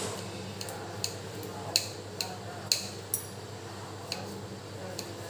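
A kitchen knife tapping on a cutting board in a few sharp, irregularly spaced clicks, cutting up green chillies, over a steady low hum.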